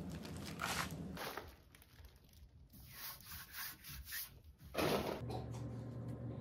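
A hand rubbing and scraping across a cast gypsum stone surface in a run of short, repeated strokes, with one louder scrape about five seconds in.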